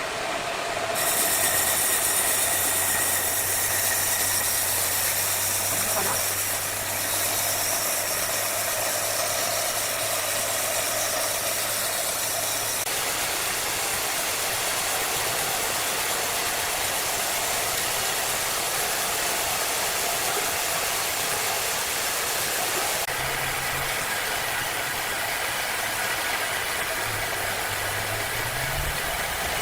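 Wood-cutting saw machine running steadily with a loud, even mechanical noise; a low hum drops out about a third of the way through, and the sound changes again a little later.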